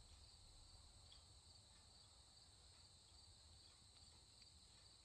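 Near silence with a faint, steady chorus of insects trilling.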